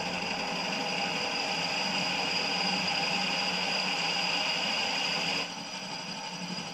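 A milling machine's spindle drives a long twist drill down into a small cylinder top casting: a steady machine run with several steady tones. It gets quieter about five and a half seconds in.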